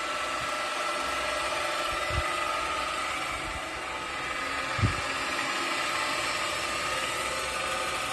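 Lab-scale sigma-blade kneader mixer running steadily with its double sigma blades and discharge screw turning in reverse: an even machine hum with several held tones, running stably without fault. Two brief dull low thumps, about two and five seconds in.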